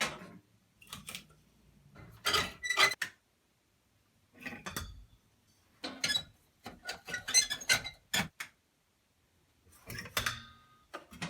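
Dishes and cutlery being handled, in scattered clusters of short clinks and knocks with a brief ring after some of them.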